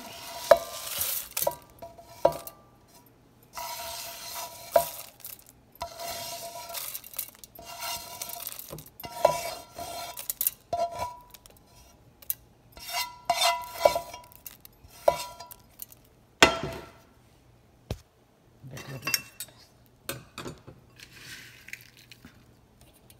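Dry-roasted coriander seeds and curry leaves dropped by the handful into a stainless-steel mixer-grinder jar. The seeds rattle against the steel in repeated short bursts, with sharp clinks and a ringing from the jar.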